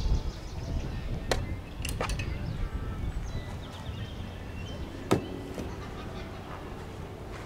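A few sharp knocks and clicks from handling gear at the front of a travel trailer, the loudest about five seconds in, over a low rumble and bird chirps.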